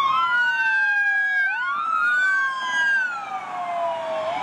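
Toy police car's electronic siren wailing, two clean tones sweeping slowly up and down in pitch and crossing each other, each sweep lasting about a second and a half.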